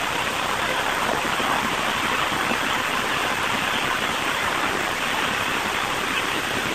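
Steady, even hiss of noise, with no voices or separate sounds standing out of it.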